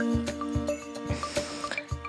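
Soft background music: sustained chords over a light, steady beat, with small chiming notes on top.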